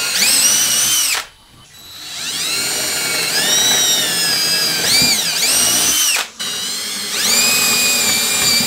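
Cordless drill boring small pilot holes through plywood, in three runs. Each run starts with the motor whine rising as it spins up, and the pitch sags and recovers as the bit bites. There are short stops about a second in and about six seconds in.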